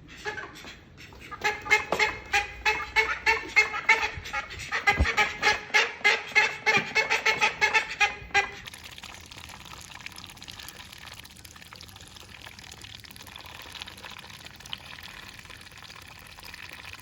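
Female call duck quacking loudly in a fast run of repeated calls, several a second, for about seven seconds, then stopping abruptly. A steady hiss follows to the end.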